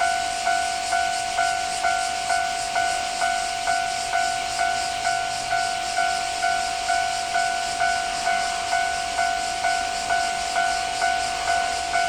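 Japanese level-crossing alarm ringing: an electronic bell tone struck evenly, a little over twice a second.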